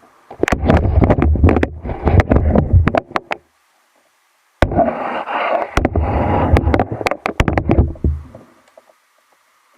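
Rapid, loud knocks and bumps over a heavy low rumble, in two bursts of about three seconds each, with a sudden stretch of total silence between them; the sound of something being handled right against the microphone.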